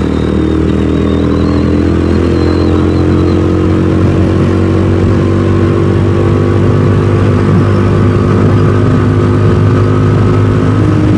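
DF250RTS dual-sport motorcycle's single-cylinder engine running steadily while riding at a constant speed.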